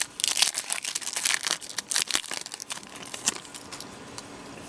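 Foil trading-card pack wrapper being torn open and crinkled, a dense crackling rustle that is busiest in the first two seconds and dies down after about three and a half seconds.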